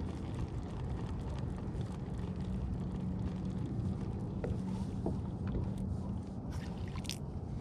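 Steady wind and water noise around a kayak at sea, with wind on the microphone, while a fishing reel is wound in to bring up a hooked squid. A few light clicks come near the end.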